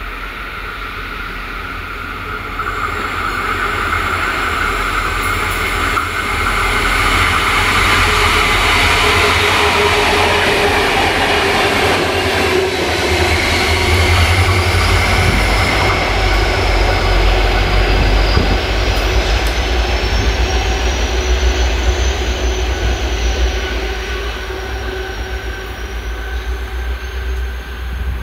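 Two diesel-electric locomotives, a G class and an XR class, running light engine with no wagons: a deep engine rumble that builds up, is loudest through the middle and eases off near the end. From about halfway a high wheel squeal rises and wavers in pitch.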